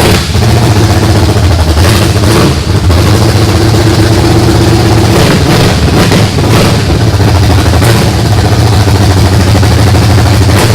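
1974 Chevy Nova's 350 V8 running steadily, brought back to life from a non-running state.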